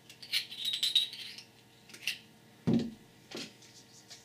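Small clicks and scrapes of hands pulling wires out of a lamp's parts, then a knock a little past halfway as a pair of side cutters is set down on a cloth-covered table, with a lighter knock just after.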